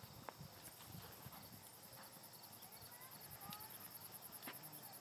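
Faint, irregular hoofbeats of a horse cantering on arena sand just after a jump.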